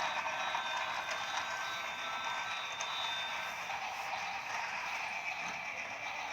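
Battery-powered toy train running along its track with a steady whir.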